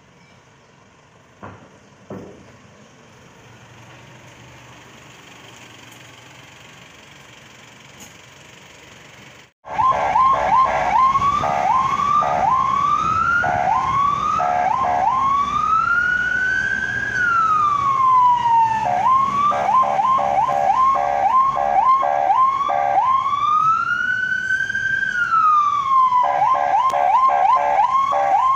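Electronic emergency-vehicle siren heard from inside a moving car. It switches between fast rising yelps and long slow wails that rise and fall. The siren cuts in suddenly about ten seconds in, after a quiet stretch of background with two light knocks.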